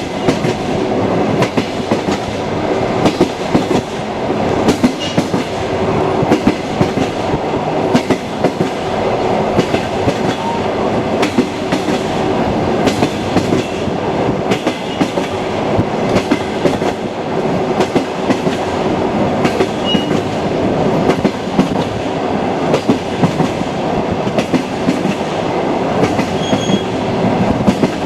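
Railway carriage wheels clattering over rail joints: a steady rumble of the moving train broken by many short, sharp clicks.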